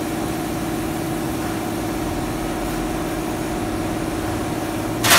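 A steady mechanical hum with a fixed low tone, and a brief, loud, sharp noise near the end.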